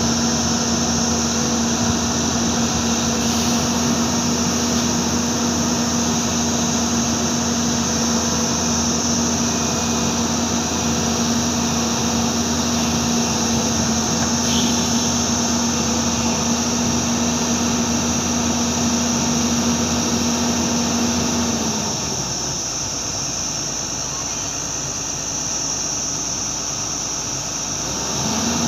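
Hyundai crawler excavator's diesel engine running steadily under load, with a constant high hiss over it. About 22 seconds in, the deeper engine note drops away and the sound goes quieter, then picks up again near the end.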